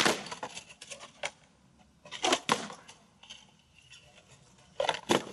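Acoustic guitar being smashed against rocks: a series of sharp cracking knocks of wood breaking, with a pair of hits about two seconds in and another pair near the end.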